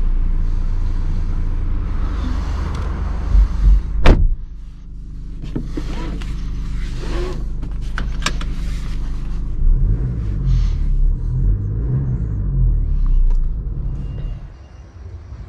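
Mercedes GLC 220d's four-cylinder diesel engine running, heard from inside the cabin as a steady low rumble, with two sharp clicks about four and eight seconds in.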